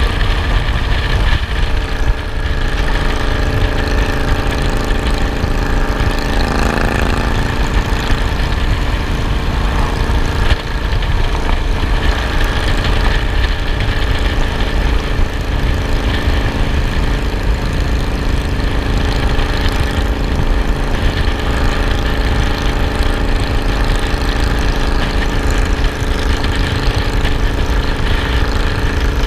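Motorcycle engine running steadily at cruising speed, with heavy wind buffeting on the microphone that is mounted on the moving bike.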